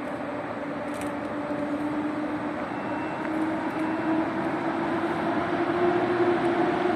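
Intercity passenger train pulling out of the station, its motor hum rising slowly in pitch and growing louder as it gathers speed, over a steady rumble. A brief click about a second in.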